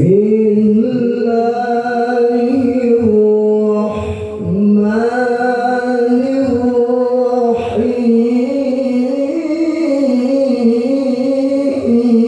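A man's solo voice chanting Qur'an recitation (tilawah) in long, ornamented held notes, pausing for breath about four seconds in.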